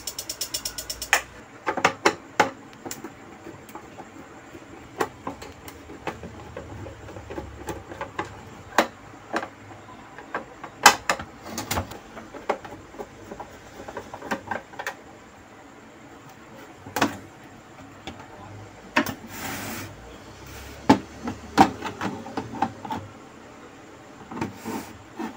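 Rapid, continuous clicking of the relays in a V-Guard voltage stabilizer, the fault being repaired, which stops about a second in. Then scattered clicks, knocks and a brief scrape as the stabilizer's plastic case is handled, unscrewed with a screwdriver and opened.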